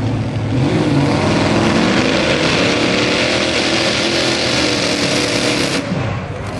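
Methanol-fuelled Chevy big-block V8 of a mini-class pulling tractor running flat out as it pulls the sled, loud and steady. About six seconds in the engine drops off as the pull is aborted.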